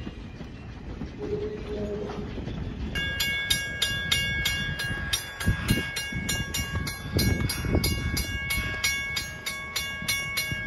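Passenger coaches rumbling past on the rails, then a railroad grade crossing bell ringing with rapid, even strokes, about three to four a second, from about three seconds in until the end.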